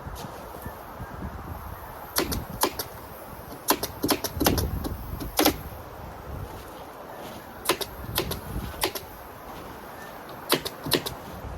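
Roofing stapler gun firing staples into ice and water guard underlayment: about fifteen sharp snaps in quick irregular bursts, the busiest between about two and five seconds in.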